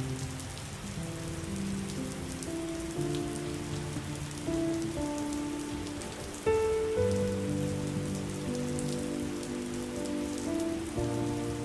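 Steady rain with scattered drop ticks, under slow music of held notes and chords that change every second or so; a louder chord comes in about six and a half seconds in.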